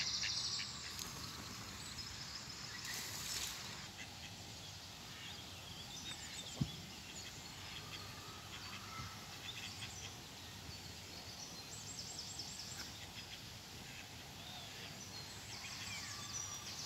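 Outdoor ambience with a steady low background noise and small songbirds singing in short high bouts, about a second in, around twelve seconds in and near the end. A single sharp click sounds about six and a half seconds in.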